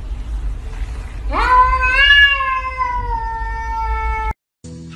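A domestic cat's single long meow, about three seconds: it rises sharply, then slides slowly down in pitch and breaks off abruptly. A steady low hum runs underneath.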